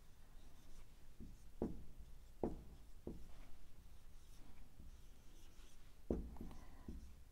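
Marker pen writing on a whiteboard: faint strokes with a few light, sharp taps of the tip against the board.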